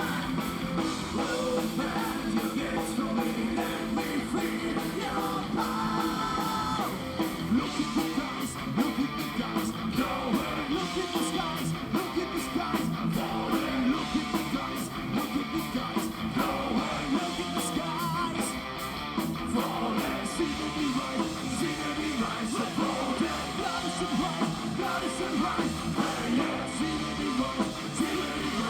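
Live heavy metal band playing: distorted electric guitars, bass and fast drums, with occasional singing.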